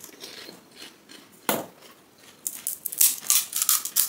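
Crisp, hollow panipuri (golgappa) shells crunching. There is one sharp crack about a second and a half in, then a quick run of crackles over the last second and a half.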